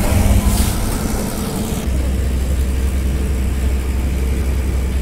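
Ferry boat's engine running with a steady low drone, heard on board as the boat crosses the river. The sound shifts about two seconds in, the hiss on top dropping away and the drone becoming steadier.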